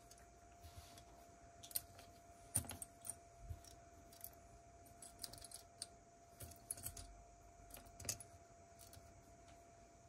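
Small plastic Lego pieces clicking and rattling as they are handled during building, in scattered quiet clicks at irregular intervals.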